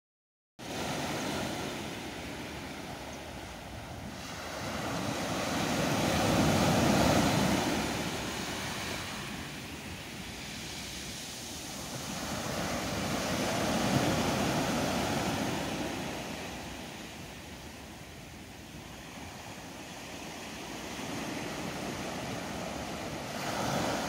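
Small waves breaking and washing up a sandy beach, the surf swelling and fading every several seconds, loudest about seven and fourteen seconds in.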